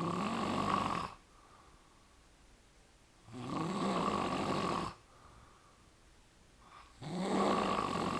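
A man snoring loudly: three long snores, each about a second and a half, coming about every three and a half seconds, with quiet gaps between.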